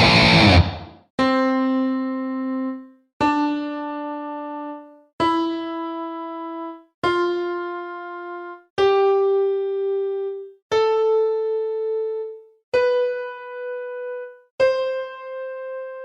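A distorted electric guitar chord cuts off under a second in. Then an electric piano plays a rising C major scale, C4 up to C5, one note at a time. Each note is held about a second and a half and fades, with a short gap before the next.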